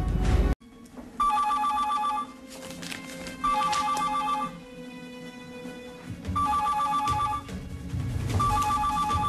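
Telephone ringing: four rings of about a second each, a fast warbling two-tone trill, repeating every two to three seconds.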